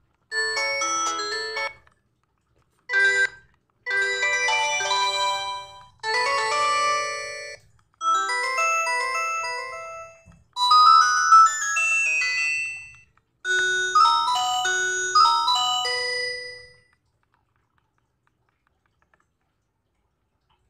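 Huawei F362 phone ringtones played one after another: seven short electronic melodies, each one to three seconds long, starting abruptly and cut off or fading before the next.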